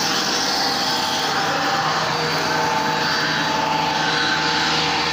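Electric pump motor run by a solar pump inverter, running steadily with an even hum and a constant whine.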